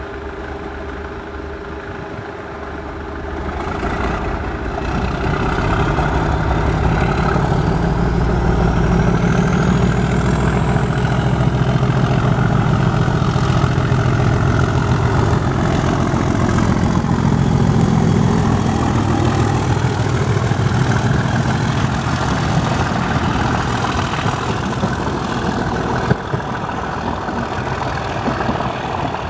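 Class 37 diesel-electric locomotive's English Electric V12 engine working hard under power, opening up about four seconds in and growing louder as it approaches and passes, with its turbocharger whine rising in pitch and then holding. Near the end the engine sound eases as the locomotive's train of coaches runs past.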